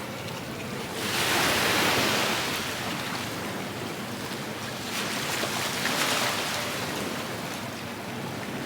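Sea waves washing onto a beach, the surf swelling twice, about four seconds apart, over a steady wash of noise.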